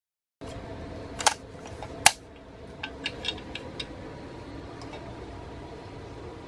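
Two sharp clicks, the first about a second in and the second a moment later, then a few lighter ticks, over a steady low background: small objects being handled on a table.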